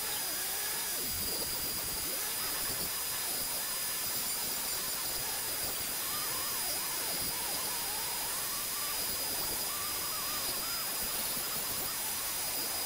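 Flex-shaft rotary tool spinning a tiny 1/8-inch diamond flame burr as it grinds into soft pine: a steady high-pitched whine over the hiss of the burr cutting.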